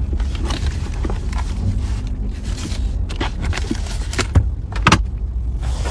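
Low steady rumble of a car in motion heard from inside the cabin, with scattered close clicks and knocks over it, the sharpest between about three and five seconds in.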